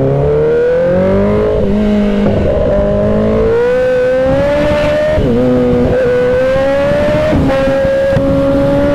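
Sport bike engine accelerating hard through the gears. Its pitch climbs steadily, then drops sharply at each of about four upshifts, over the rush of wind noise at speed.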